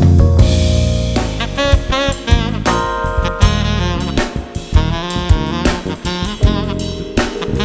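Instrumental jazz: a saxophone plays a melody over a drum kit.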